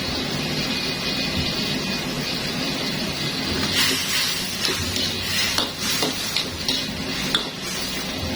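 Food sizzling in a hot frying pan as a stir-fry is cooked, a steady hiss. From about four seconds in, a spatula scrapes and clacks against the pan as it is stirred.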